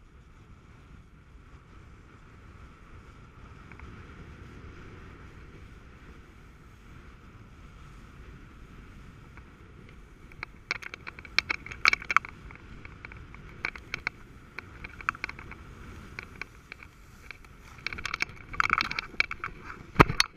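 Snowboard sliding downhill over packed snow: a steady hiss at first, then from about halfway a run of loud, sharp scrapes as the edges cut across the firm, tracked surface. Near the end comes a single hard thump as the rider falls into the snow.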